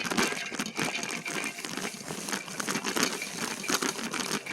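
E-bike rolling along a rough park trail: a dense, irregular run of clicks and crackles from the tyres and the bike over the uneven ground.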